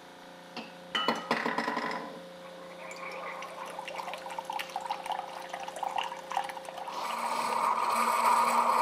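Keurig single-cup brewer dispensing hot apple cider from a pod into a glass mug. A short click comes first, then the machine starts about a second in and hums steadily while the cider streams and splashes into the glass. The pour gets louder near the end as the mug fills.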